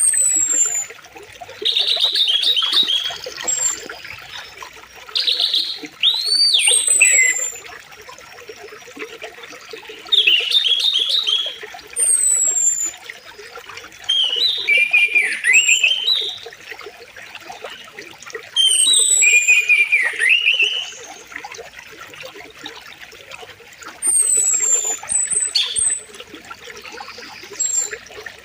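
Songbirds singing in short, loud phrases every few seconds, each made of high falling whistles and a lower warbling trill, over the faint steady rush of a flowing river.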